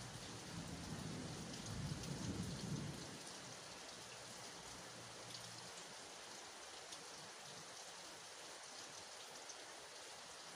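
Steady rain falling on grass and leaves, with faint drip ticks. A low rumble of thunder runs through the first three seconds and fades out by about the middle.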